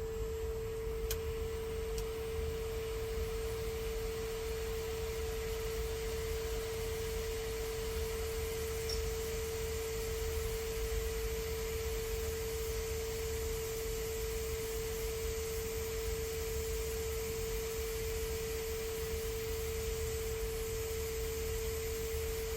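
Hot air rework station running while a chip is desoldered from a logic board: a steady whine from its blower, with a faint hiss of air.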